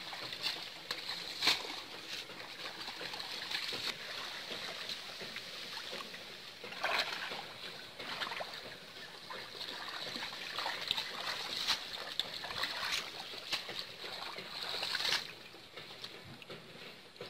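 Shallow pond water splashing and trickling as a mosquito net full of water hyacinth is lifted and worked by hand, with scattered crackles and several louder splashes, then quieter for the last couple of seconds.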